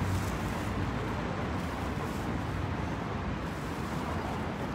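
Steady outdoor urban background noise: a low, even traffic hum with no distinct events.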